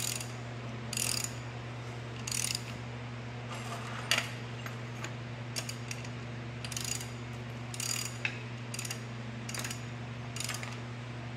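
Hand socket ratchet clicking in short strokes, about one burst a second, as bolts are run down on the tractor's crankcase. A steady low hum runs underneath.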